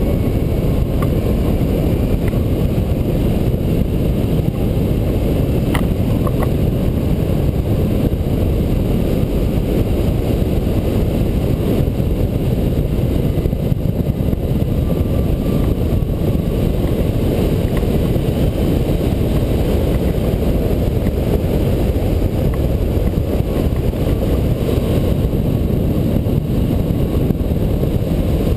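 Steady, deep rush of air streaming past the microphone of an A.I.R. Atos VR rigid-wing hang glider in an engineless glide on landing approach. It can pass for jet engines but is only airflow.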